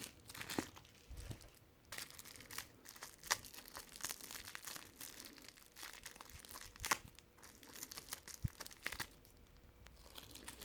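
Packaging crinkling and rustling as playing-card decks are handled, faint and irregular, with a few sharper crackles and small clicks about three and seven seconds in.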